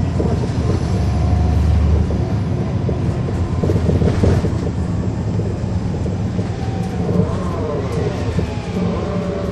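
A 2009 NABI 40-SFW transit bus under way, heard from inside, with its Caterpillar C13 diesel running as a steady low drone over road rumble. From about seven seconds in, a gear whine from the drive axle rises and falls in pitch.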